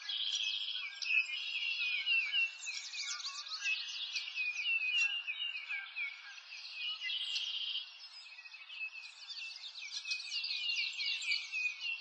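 A dense, continuous chorus of many small high-pitched chirping calls, overlapping quick chirps with short trills, and nothing deep underneath.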